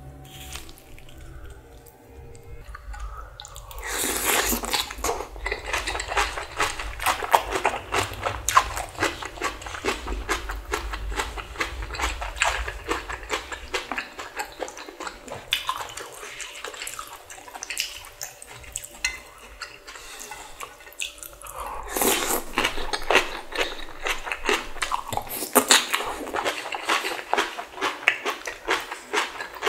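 Close-miked eating sounds: a person slurping and chewing spicy ramen with rice mixed into the broth, full of wet mouth clicks. It grows loud about four seconds in, eases off for a while, and picks up again about twenty-two seconds in.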